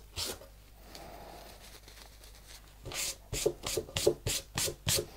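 Quick back-and-forth rubbing strokes of a cloth pad over a shellac-finished tabletop coated in pumice slurry, a gritty scrubbing sound at about four strokes a second. The strokes start about three seconds in, after a quieter pause.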